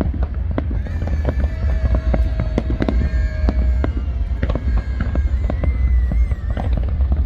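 A fireworks display: many shells bursting and crackling in quick succession over a steady deep rumble.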